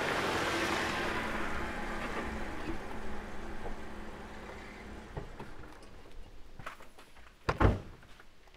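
Jeep Wrangler driving up and stopping, its running noise fading away over the first few seconds. Near the end comes a single loud thump of a car door shutting.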